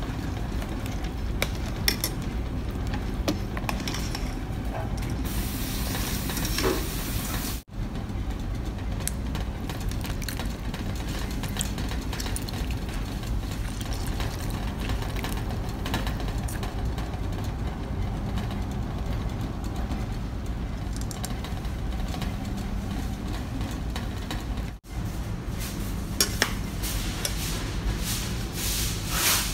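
Steady low rumble of a stove under a steaming stainless steel pot of soup, with scattered clinks and scrapes of a metal ladle and strainer against the pot, busiest in the last few seconds.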